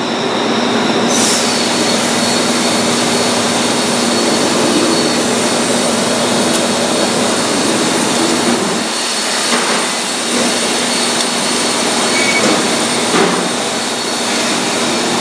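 Steady loud machinery noise, an even rushing with a constant low hum. A few faint clicks sound in the second half as a steel splice rod is worked through the conveyor chain links with pliers.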